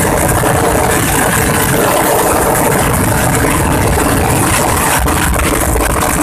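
Auto-rickshaw (tuk tuk) engine running loud and steady as the three-wheeler drives along the road.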